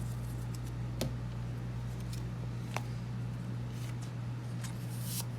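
Trading cards being handled, with a few soft clicks and a short rustle near the end, over a steady low electrical hum.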